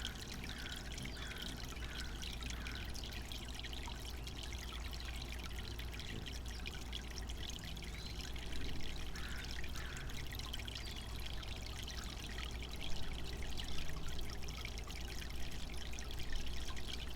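Garden water fountain running steadily, water pouring and trickling into its basin.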